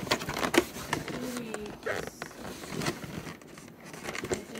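Cardboard box and packaging being handled: irregular scraping, rustling and clicks as the flaps are moved.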